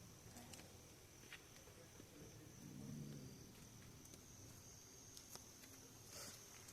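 Near silence at night: a faint, steady high-pitched chirring of night insects, with a few faint clicks.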